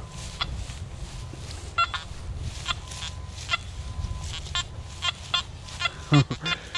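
Nokta Anfibio metal detector giving short, pitched target beeps at an irregular pace as the coil sweeps the ground, over a faint steady tone.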